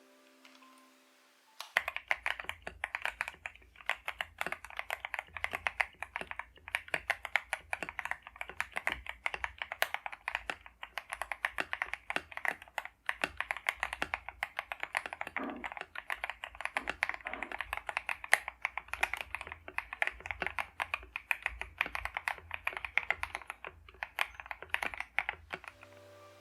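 Mechanical keyboard with Akko POM switches being typed on quickly and continuously, a dense run of key clacks starting about two seconds in.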